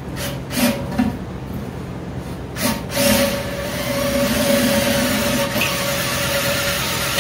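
A few knocks, then about three seconds in an electric drill starts and runs steadily, drilling through the brew kettle's wall.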